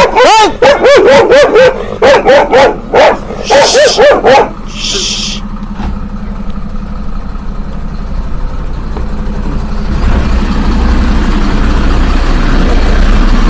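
A dog barks rapidly and repeatedly for the first four seconds or so. After a brief hiss, a large truck's diesel engine runs steadily, growing louder toward the end.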